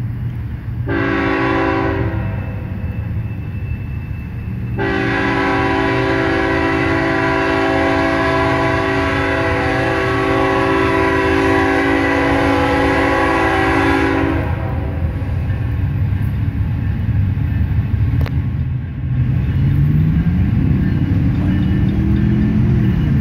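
Diesel freight locomotive's air horn, a chord of several steady notes, sounding one short blast of about a second and then a long blast of about ten seconds as the loaded coal train approaches. A low diesel engine rumble runs underneath, and its pitch rises near the end as the locomotive draws nearer.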